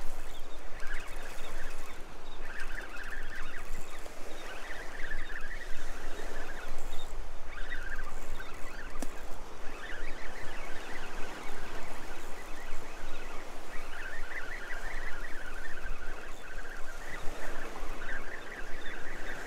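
Daiwa spinning reel being cranked to retrieve a hooked fish under load, its gears chattering in stretches of a second or two with short pauses between.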